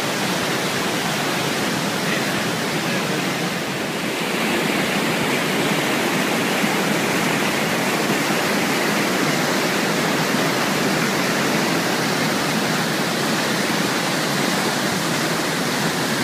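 Waterfall: a steady, dense rush of falling water with no break.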